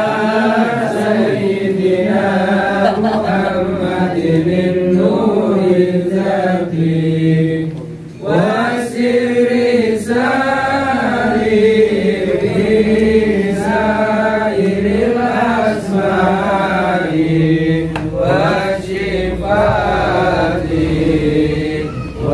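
Chanted Islamic devotional singing, a melodic dzikir or sholawat chant with long held, bending vocal lines. It pauses briefly about eight seconds in.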